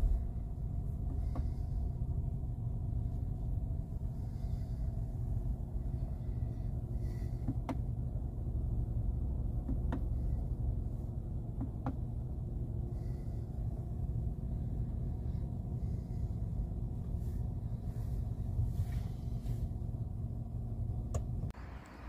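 BMW 116i (F40) 1.5-litre three-cylinder petrol engine idling, heard from inside the cabin as a steady low rumble, with a few faint clicks over it. The engine sound cuts off shortly before the end.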